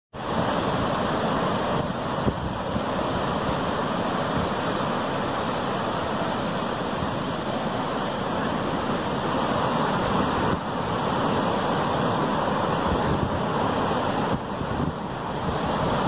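Atlantic surf breaking and washing up the beach: a steady rush of waves, with small dips in loudness a couple of times near the end.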